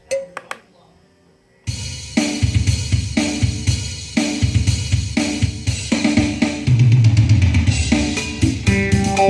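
A few clicks, then a drum-kit backing track starts about a second and a half in and plays on with a steady beat; plucked melodic notes join near the end.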